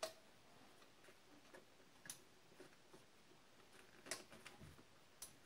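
Faint, scattered clicks and taps, a few seconds apart, from a hand tool working a bolt loose in the engine bay.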